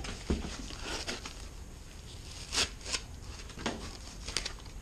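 Packaging wrap around a boxed electronics unit rustling as it is handled and pulled from a cardboard box. It is a soft rustle with a handful of short, sharp crinkles.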